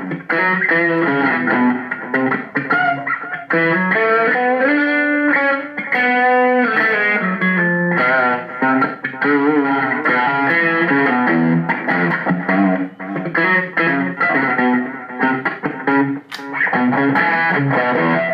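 Electric guitar played through a Zoom G3Xn multi-effects pedal's Marshall amp simulation, a driven tone with no chorus or reverb, heard through an amplifier. A continuous phrase of picked single notes and some longer held notes.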